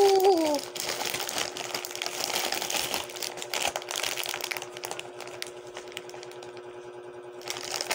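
Clear plastic snack packets crinkling and crackling as they are handled, in quick irregular crackles that thin out after about five seconds. A short hummed voice sound opens it, and a faint steady hum runs underneath.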